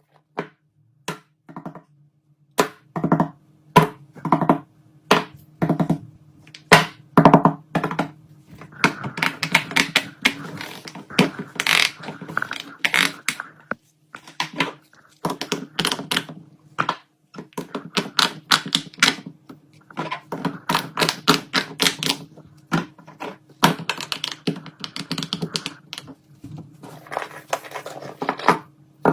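Fidget toys being handled, making sharp clicks and taps: single taps spaced out at first, then dense rapid clattering runs from about a third of the way in. A faint steady low hum lies underneath.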